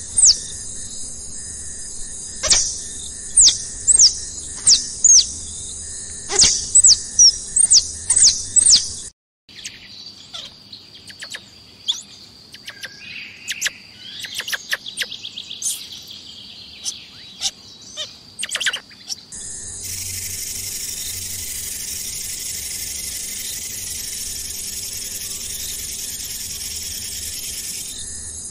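Birds chirping: loud, sharp chirps that sweep downward, repeated in quick runs, then a quieter tangle of short calls and clicks. About two-thirds in, this gives way to a steady, high-pitched insect drone.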